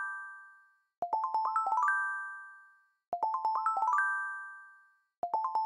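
Channel intro jingle: a quick rising run of bell-like notes that rings out and fades, repeated about every two seconds, three runs in all.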